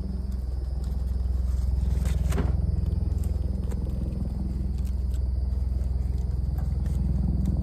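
Aluminium foil packet being handled and pulled open, crinkling and scraping, with one sharper crackle about two seconds in, over a steady low hum.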